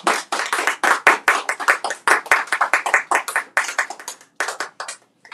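A small audience clapping, the claps thinning out and stopping about five seconds in.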